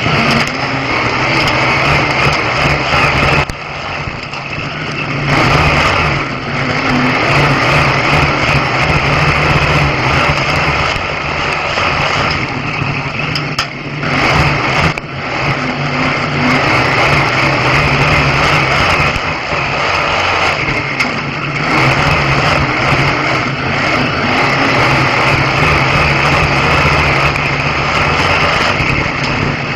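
Race engine of a winged oval stock car running hard under racing load, heard from inside the cockpit, with brief drops in level about four seconds in and again around thirteen to fifteen seconds.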